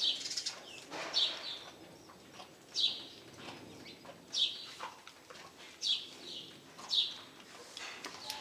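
A bird chirping repeatedly: about six short, high chirps, one every second or so.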